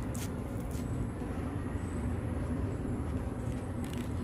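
A few crisp crunches of raw lettuce leaves being bitten and chewed, over a steady low background rumble.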